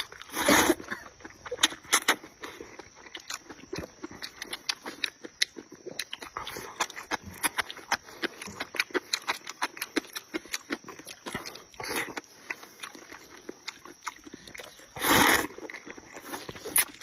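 Close-miked mouth noises of a person eating rice noodles and pork intestines: a steady stream of wet chewing clicks and lip smacks, with two loud slurps, one about half a second in and one near the end.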